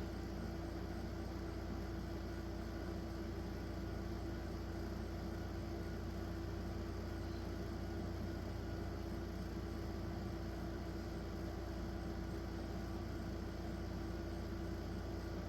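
Steady background machine hum with a constant low tone, unchanging throughout, with no distinct clicks or knocks.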